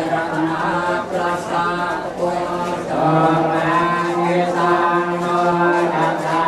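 Chanting in long held, slowly wavering notes: the prayer chanting of a Vietnamese funeral rite.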